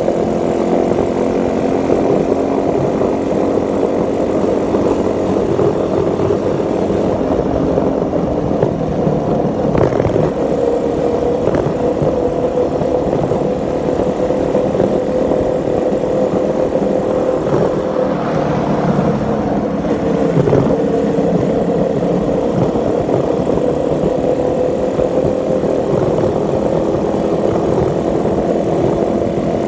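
Motorcycle engine running steadily while riding, its note drifting gently up and down with speed, with wind rumbling on the microphone.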